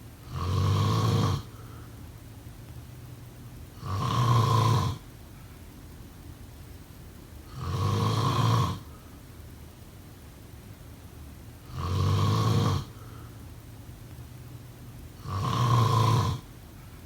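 A sleeping person snoring: five snores at a steady rhythm, about one every four seconds, each lasting about a second, with a faint low hum between them.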